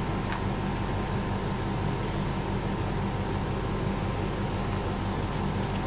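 Steady machine-like background hum made of several fixed low tones. Faint clicks of plastic parts being handled come about a third of a second in and again near the end.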